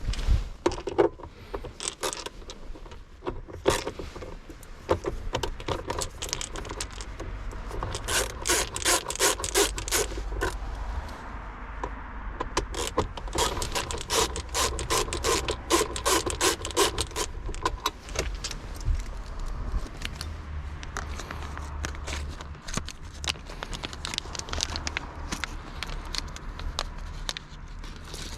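Small metal items clinking and rattling in quick runs, with scrapes in between. The densest runs of clatter come about a third of the way in and again around the middle.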